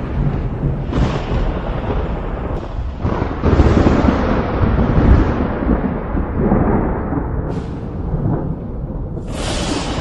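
Thunder rolling and rumbling without a break, with sharper claps breaking in: one about three and a half seconds in, the loudest, and a fresh crack near the end.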